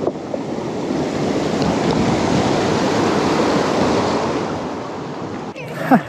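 Wind rushing over the microphone of a moving mountain biker, swelling in the middle and easing off, with a short falling squeal near the end.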